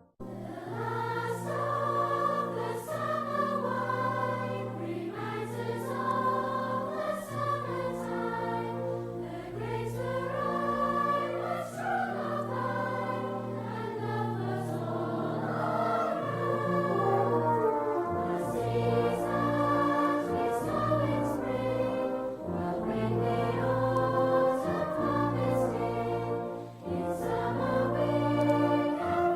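Choral music with voices singing together over a steady bass accompaniment.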